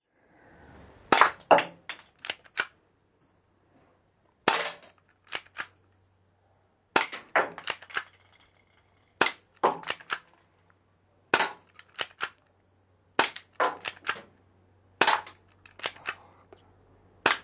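Manually cocked, spring-powered Cybergun Sig Sauer P226 airsoft pistol firing 6 mm BBs: eight sharp snaps about two seconds apart, each followed by a few smaller clicks as the slide is racked to cock it for the next shot.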